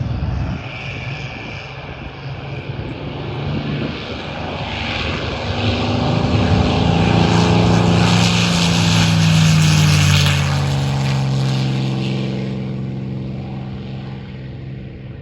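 North American P-51D Mustang's Packard Merlin V12 engine at high power as the aircraft passes: it grows louder to a peak, then drops in pitch and fades as it moves away.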